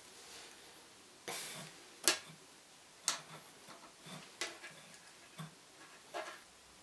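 Round-nose pliers gripping and bending thin silver wire: a handful of small sharp metal clicks about a second apart, the loudest about two seconds in, with a brief rustle of handling just before it.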